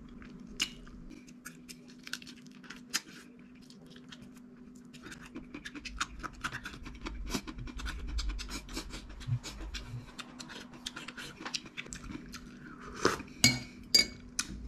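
Small clicks and crackles of fingers picking at and pulling apart food on a plate, sparse at first and growing dense about five seconds in. A few sharper, ringing clinks come near the end.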